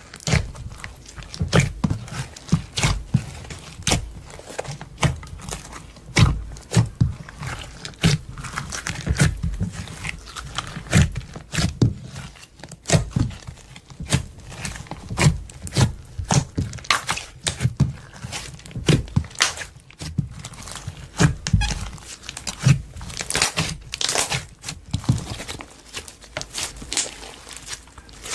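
Clear slime being kneaded, stretched and pressed by hand, giving a run of irregular sticky clicks, pops and soft squelching thumps, a few each second.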